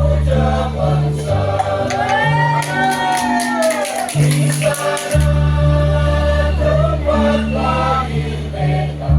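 Choir singing over sustained low bass notes, with a quick run of rattling percussion strokes in the middle.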